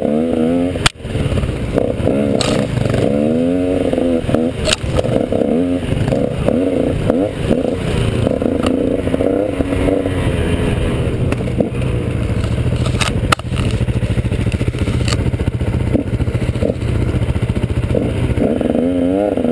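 KTM 150 XC two-stroke single-cylinder dirt bike engine heard from the rider's helmet, revving up and down through the throttle as it climbs and winds along a trail, with several sharp knocks from the bike over rough ground. Revs climb again near the end.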